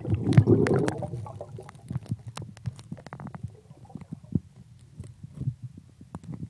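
Muffled underwater sound on a submerged camera microphone. A loud low rush of water comes as it goes under in the first second, then settles into irregular low knocks and sharp clicks, with a quick run of clicks about three seconds in.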